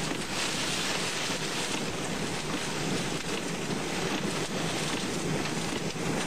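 Heavy rain and strong storm wind beating on a moving car, heard from inside the cabin: a steady, dense rush with no breaks.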